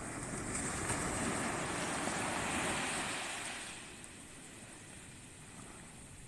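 Small waves breaking and washing up the beach: a rush of surf that builds over the first second, holds for a few seconds and fades away about four seconds in, leaving a softer steady wash.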